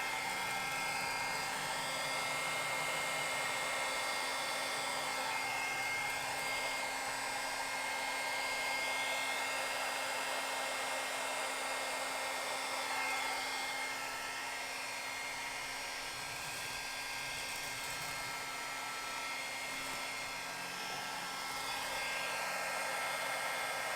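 Handheld hair dryer blowing steadily, a rush of air with a steady motor whine, used to blow wet acrylic paint out across a canvas; it gets a little quieter past the middle.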